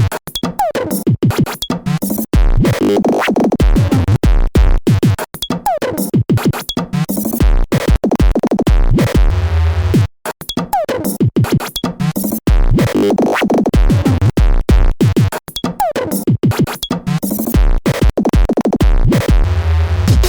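Electronic music: a drum-machine beat under choppy, cut-up synthesizer samples, in a pattern that repeats about every ten seconds, with a brief drop-out about halfway through.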